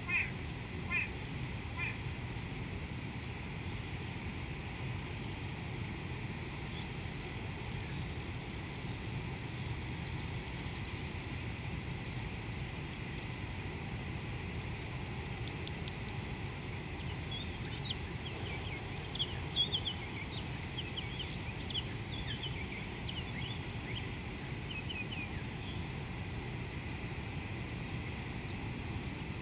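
Open-air ambience with a steady high-pitched drone and low background noise. Birds call in short, quick chirps a few times at the start and in a busier flurry from about 17 to 23 seconds in.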